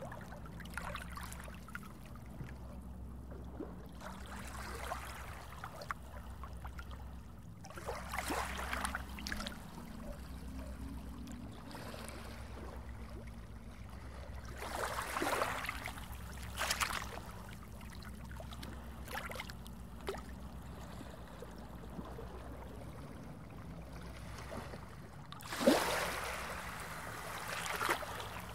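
Underwater ambience: a steady low rumble with bubbling, gurgling water swishes every few seconds, the loudest one a little before the end.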